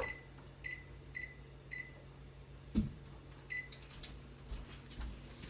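Electronic oven control panel beeping as its buttons are pressed to set the preheat: four short beeps about half a second apart, then one more about three and a half seconds in. A low thump comes between them.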